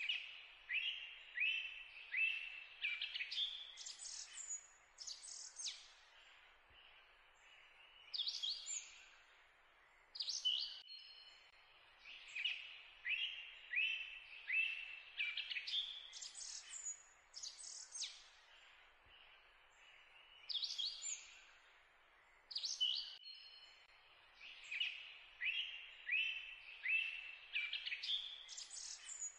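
Looped recording of birdsong: runs of short chirps and whistles over a faint hiss, the same sequence starting over about every twelve seconds.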